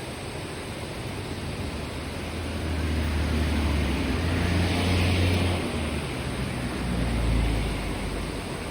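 Kibune River babbling and rushing steadily over its stones. A low rumble swells about a third of the way in, peaks, and fades near the end.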